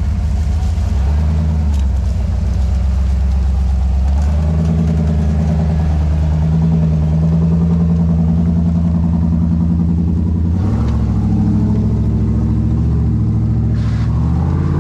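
Jeep CJ Renegade's engine running under load as it crawls up a steep, rutted dirt slope. The engine note rises about four seconds in and changes again about ten seconds in.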